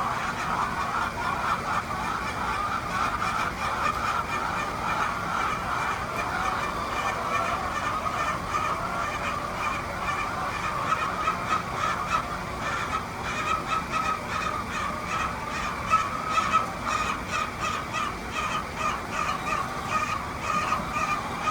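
A flock of Egyptian laying hens clucking and calling over one another continuously, with quick, sharp notes growing more frequent in the second half.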